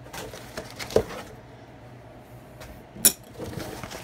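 Coilover parts being taken from a cardboard box and set down: light handling noise with two sharp knocks about two seconds apart, the second brighter and louder, like a hard part clinking as it is put down.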